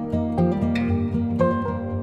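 Background instrumental music with plucked, guitar-like notes.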